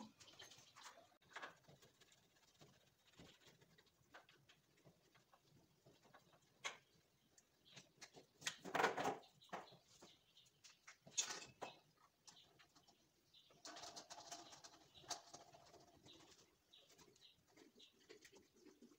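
Faint, scattered clicks, knocks and rustles of hands working on a wash-hand basin's tap and plastic waste pipe. A louder scrape comes about nine seconds in.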